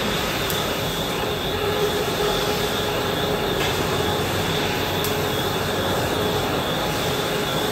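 HSG TL660S heavy-duty tube laser cutter running as its chucks turn and position a large perforated steel pipe. It is a steady mechanical drone with a steady high whine over it, and a few faint ticks.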